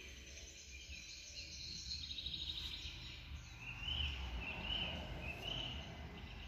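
Faint outdoor ambience with birds chirping: a quick trill about two seconds in, then three short chirps in a row, over a low rumble.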